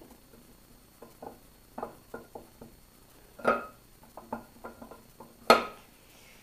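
Camshaft being slid by hand out of a cast-iron Chevy 5.3L LS block: irregular light metal clicks and knocks as it catches on its way out, with two sharper clacks, one near the middle and a louder one near the end.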